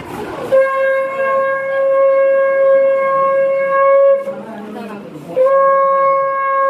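Conch shell (shankha) blown in two long, steady blasts of one held note: the first lasts about three and a half seconds, the second begins about five seconds in.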